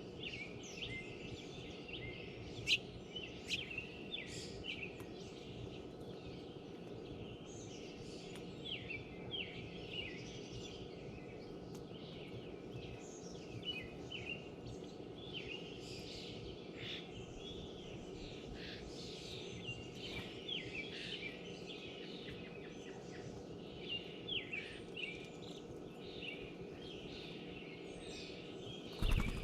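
Many small songbirds chirping and calling in quick, overlapping notes, over a steady low background hum. A single thump sounds just before the end.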